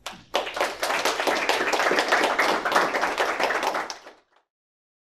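Audience applauding, a dense patter of many hands clapping that is cut off abruptly about four seconds in.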